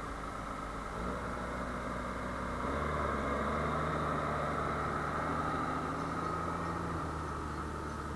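Diesel tractor engines working under load while a tractor stuck in the mud is towed out with a rope. The engine note steps up and grows louder about three seconds in.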